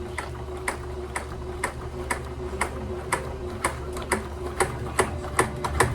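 Walking-foot sewing machine stitching slowly through three layers of material with a leather needle, each stitch a sharp click about twice a second over a steady hum. The stitches come quicker near the end.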